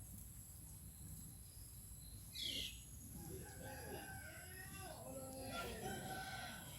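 A rooster crowing, with a short, sharp high-pitched call about two and a half seconds in.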